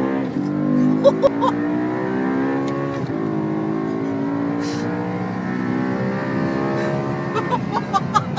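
BMW M3 Coupe's V8 engine heard from inside the cabin under hard acceleration, its note rising in pitch, with a short break about three seconds in before it climbs again.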